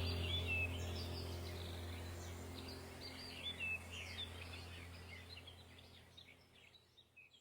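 Small birds chirping over a low steady hum, the whole sound fading out to near silence about six seconds in.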